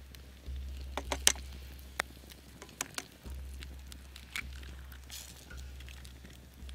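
Wood campfire crackling, with sharp pops and snaps at uneven intervals; the loudest comes a little over a second in.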